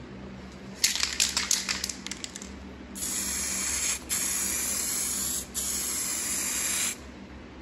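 Aerosol rattle can of clear coat: a quick burst of sharp rattling as the can is shaken, then a steady spray hiss for about four seconds, broken twice by short pauses.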